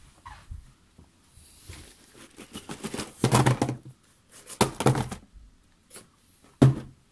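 Small shrink-wrapped cardboard boxes being set down and shuffled on a tabletop: a string of knocks and clatters, loudest about three seconds in, another just before five seconds and a sharp one near the end.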